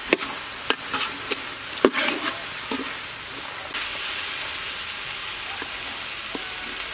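Minced wonton filling sizzling steadily in a hot metal wok as it is stir-fried. A metal spatula scrapes and clinks sharply against the wok several times in the first couple of seconds.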